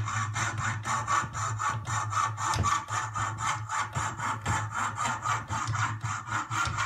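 Hand fretsaw cutting a piece of wood in quick, even back-and-forth strokes, a rasp about four times a second.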